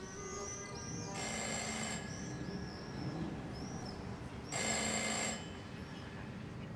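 A bell-like ringing in two short bursts, one about a second in and one about four and a half seconds in, the way a telephone rings. Under it runs a steady scatter of short high chirps.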